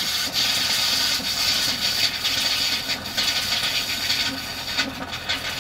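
Faucet spitting and sputtering as air is purged from a motorhome's fresh-water lines: water and air bursts come out in irregular spurts over a steady hiss, the sign of air bubbles still in the system after a new diaphragm water pump was fitted.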